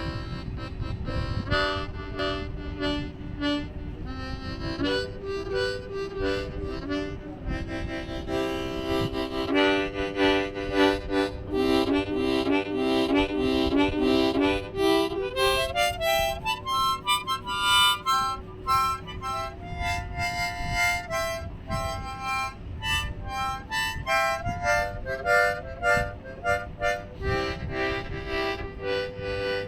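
EastTop harmonica being played: a tune of held notes and chords, stepping up in pitch about halfway through and then back down.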